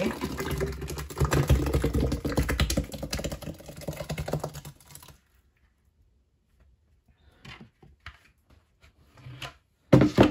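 Thick homemade liquid dish soap pouring from a pitcher through a plastic funnel into a plastic jug: a dense gurgling crackle of small clicks for about five seconds, then it stops. A few faint plastic clicks follow, and a short loud sound near the end.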